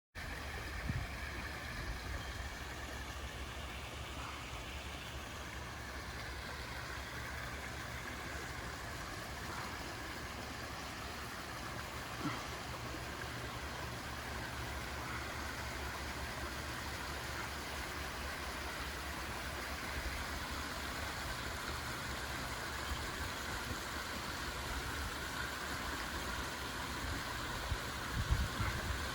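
Steady trickling and splashing of a backyard pond's waterfall over a low, constant rumble, with a few faint knocks.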